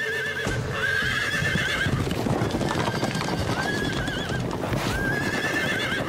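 Sound effects of a herd of wild horses galloping close past: dense hoofbeats that start about half a second in, with repeated whinnies over them.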